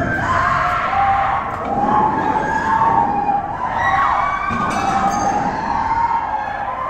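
Many voices screaming in panic: long, wavering, high-pitched cries that overlap one another.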